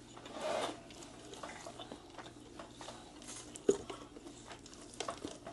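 A person chewing with soft wet mouth sounds, and small sticky clicks as fried naem chicken wings are pulled apart by hand; one sharper click about three and a half seconds in.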